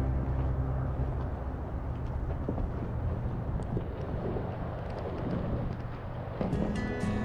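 Car driving, with a steady low rumble of engine and road noise. Music with light percussion comes back in about six and a half seconds in.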